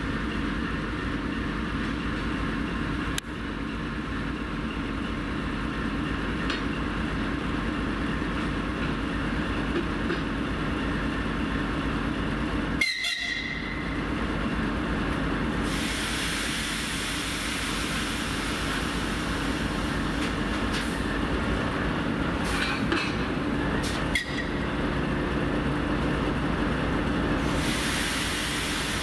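TEP70 diesel locomotive's diesel engine running with a steady drone and the whistle of its turbocharger. There are short breaks in the sound a few times.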